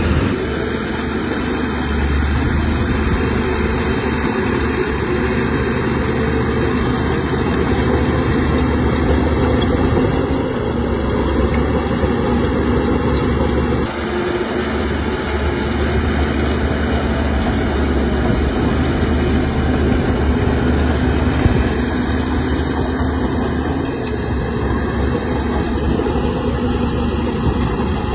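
Shantui crawler bulldozer's diesel engine running steadily under load while pushing sand, with a sudden shift in the sound about halfway through.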